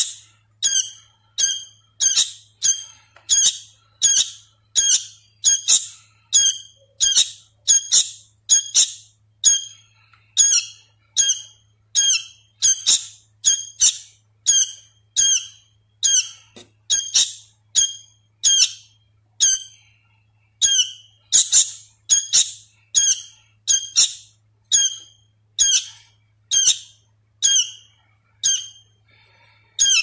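Hand-fed sooty-headed bulbul fledgling calling over and over in short, high calls, about one and a half a second: a young bird still learning its song.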